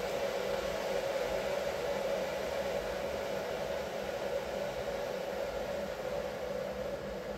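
A household appliance running with a steady whirring hum and a strong midrange drone, easing slightly near the end.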